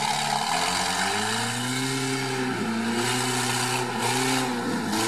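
UAZ 4x4's engine revving hard under load, its pitch rising then holding high and dipping briefly about two and a half seconds in and again near the end.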